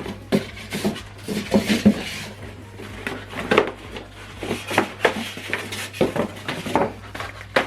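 Handling sounds from unpacking a soundbar: an irregular run of light knocks, clicks and clatter as the bar and its box and packing are moved about.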